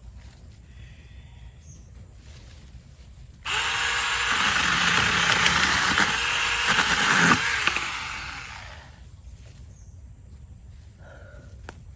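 Battery-powered 6-inch mini chainsaw that starts abruptly about three and a half seconds in and runs for about four seconds, its pitch wavering as it cuts, then winds down and stops.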